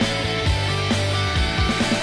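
Background music with held notes over a steady beat of about two beats a second.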